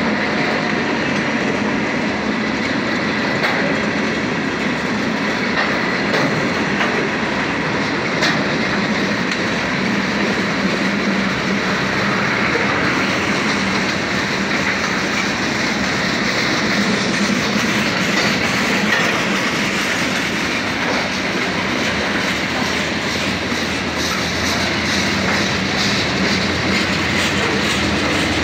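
Freight cars rolling past at close range: the steady rolling noise of steel wheels on rail, even throughout, with no locomotive passing.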